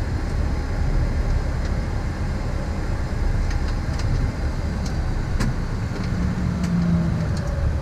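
Steady low rumble inside a Boeing 737-800 cockpit as it taxis in with its CFM engines running at idle, with a few faint ticks.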